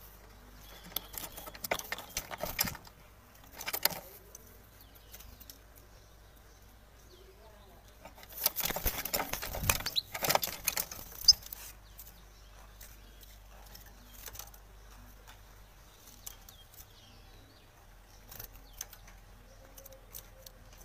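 Caged European goldfinch flapping its wings in bursts against the metal bars, rattling the cage as it panics at a kestrel's attack. The flapping comes in short bursts, then a longer, louder spell in the middle that ends in a sharp knock.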